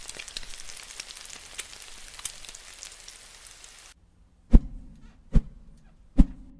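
Crackling, rain-like hiss dotted with small clicks, which cuts off suddenly; then three loud deep thumps, evenly spaced under a second apart, over a low hum.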